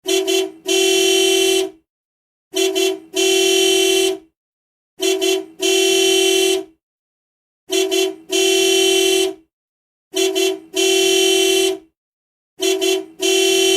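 Car horn sounding in a repeating pattern: a short toot, then a longer honk of about a second. The pair repeats about every two and a half seconds, six times, on one steady pitch.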